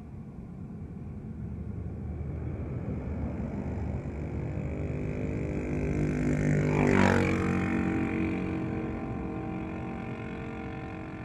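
A road vehicle passing close by. Its engine note grows louder, peaks about seven seconds in with its pitch dropping as it goes past, then fades, over a steady low rumble.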